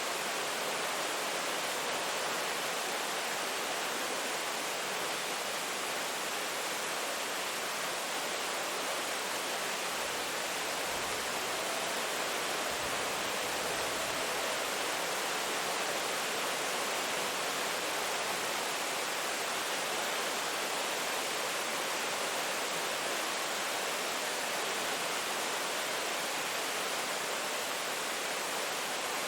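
Steady rain, an even hiss of rainfall at a constant level, with a faint low rumble between about ten and fifteen seconds in.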